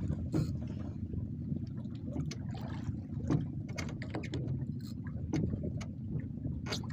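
Steady low rumble of wind and water around a small wooden boat at sea, with scattered light knocks and clicks.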